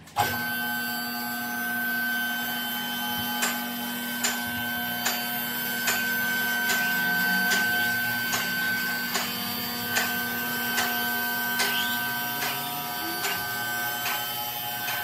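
Two-post car lift's electric hydraulic pump motor running steadily as it raises the car, a whine with several fixed tones. A sharp click comes roughly every 0.8 s as the lift arms climb past the safety-lock notches.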